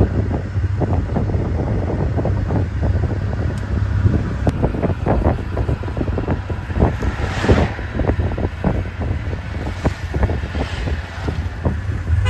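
Wind buffeting the microphone outdoors: a steady low rumble with irregular crackling flutter, and a louder whooshing gust about seven seconds in.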